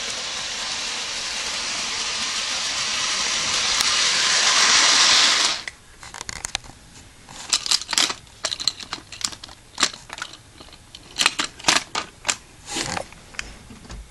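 Motorized toy train engine whirring along its track with a string of toy trucks, growing steadily louder for about five seconds before cutting off suddenly. Then a run of sharp plastic clicks and clacks as the toy trucks and engines are handled.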